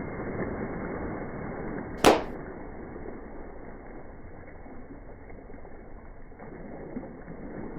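A vehicle engine running, heard as a steady muffled rumble, with one sharp exhaust bang about two seconds in.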